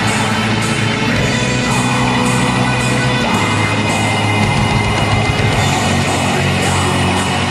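Atmospheric black metal: a dense, steady wall of distorted guitars and drums, with the low notes shifting about two and three seconds in.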